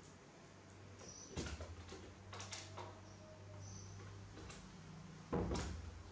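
Two dull thumps about four seconds apart, with a few lighter clicks between them and faint short high squeaks, over a low steady hum.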